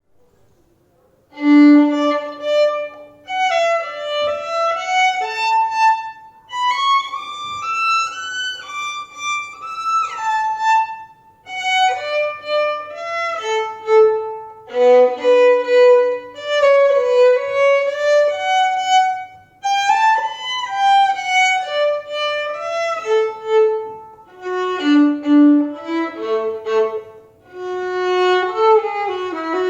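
Solo violin playing a playful tune in 7/8 time, played staccato: short detached notes in phrases broken by brief pauses, starting about a second and a half in.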